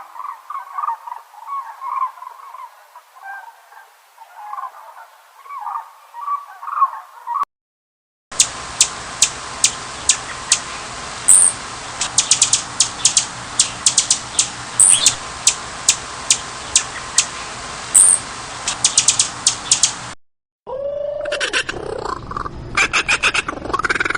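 A series of different bird calls from separate recordings joined with short silent gaps. First a busy chattering, then rapid high chirps and clicks over a steady hiss, and near the end calls that slide down and up in pitch.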